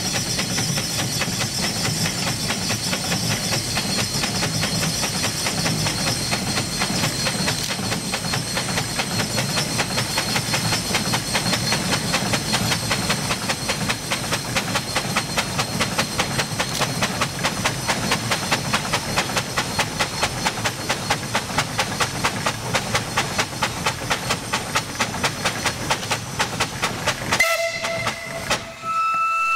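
Steam donkey engine running, its exhaust chuffing in a fast, even rhythm over a steady hiss of steam. Near the end the chuffing cuts off and a steam whistle sounds.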